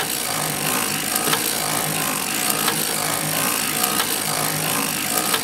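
Circular sock knitting machine being hand-cranked at a steady speed while it knits: a continuous mechanical clatter of the needles running through the cams, with light clicks about once a second.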